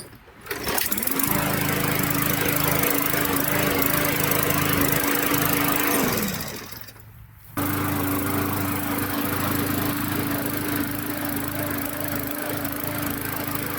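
Briggs & Stratton push-mower engine starting and running steadily with its new ignition coil, the no-spark fault cured. Around six seconds in it winds down and stops, then is running again from about seven and a half seconds.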